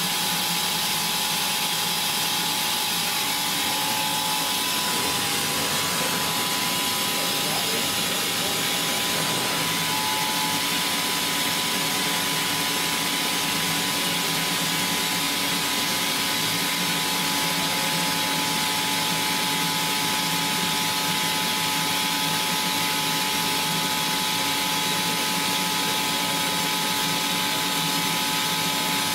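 STUDER S31 cylindrical grinding machine running while grinding a bearing ring: a steady hiss with several steady whining tones, which shift about ten seconds in.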